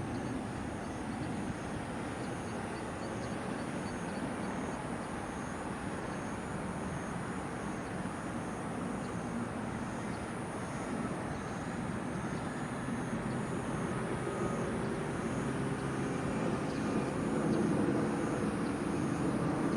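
Steady outdoor background of distant traffic noise, swelling toward the end as a vehicle passes, with faint high, evenly repeated ticks.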